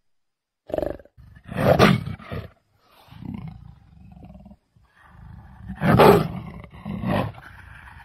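A big cat roaring and growling: a series of rough calls with lower rumbling between them, the loudest about two seconds and six seconds in.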